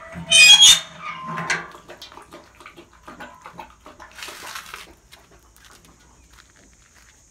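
Metal grille gate squeaking as it is worked by its latch: a loud, high squeal about half a second in and a shorter one a second later, followed by scattered clicks and a brief scrape.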